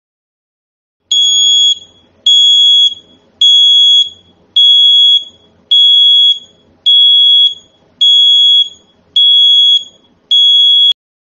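DNI4125 12/24 V reversing-alarm siren sounding its intermittent warning, the signal that a vehicle is backing up. It gives nine steady, high-pitched beeps, a little over one a second, starting about a second in.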